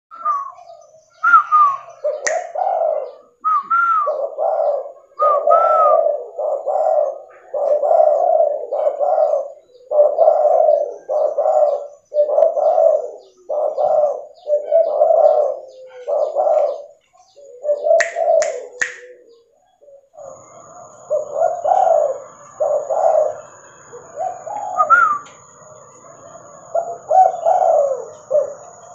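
Spotted dove cooing over and over in its typical tekukur phrases: a short rising higher note followed by a run of low coos, phrase after phrase. Three sharp clicks come a little past halfway, and a faint steady high whine sits under the cooing in the later part.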